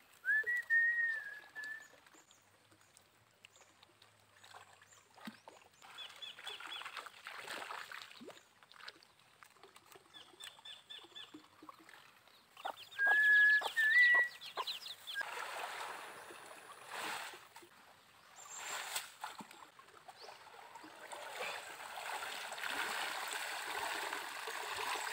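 Birds calling in short whistled phrases near the start and again about halfway, over water sloshing and splashing as a person wades in a shallow fish pond and hauls a fine-mesh hapa net up out of the water. The splashing grows louder near the end.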